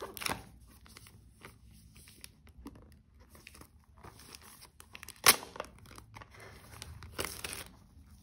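Clear plastic shrink-wrap being torn and peeled off a small cardboard earbuds box by gloved hands, crinkling throughout, with a sharp snap about five seconds in and a louder crackle near the end.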